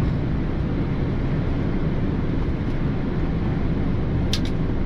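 Steady cockpit noise of a Boeing 787-9 climbing out: a constant rush of air and engine noise, heaviest in the low end. Two quick clicks sound near the end.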